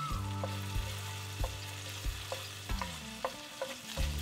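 Ginger-garlic paste sizzling in hot oil in a stainless steel pan. A wooden spatula stirs it, with light irregular knocks and scrapes against the pan about once or twice a second.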